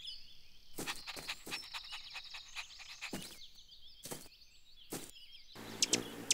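Cartoon sound effects: birds chirping, with a run of quick light taps as a puppy scampers. Near the end a louder, fuller sound comes in.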